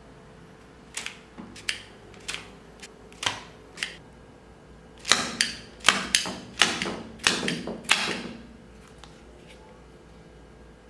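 Homemade wooden rubber band pistol firing a burst, with small card targets on wooden stands clattering over. About six light clicks in the first four seconds, then a quicker run of louder clacks from about five to eight seconds.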